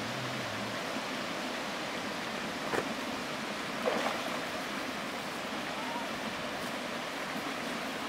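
Shallow rocky stream running steadily over stones, with a short knock about three seconds in and a brief splash about a second later as a miniature goat wades through the water.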